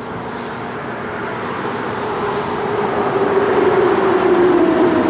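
A motor vehicle approaching, its noise growing steadily louder, with a hum that slowly drops in pitch.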